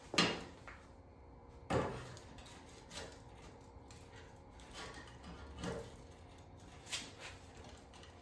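Light knocks and clunks of a sheet-metal repair panel being handled against a pickup's bed side, about six scattered through the stretch. The loudest come at the very start and just under two seconds in.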